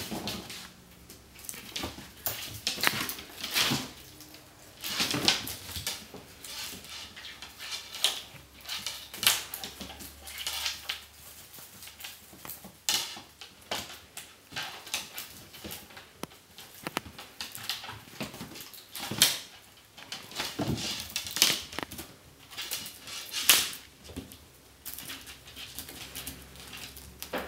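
Kittens' paws and claws scrabbling on a wooden floor as they play-fight, in quick irregular taps and thumps.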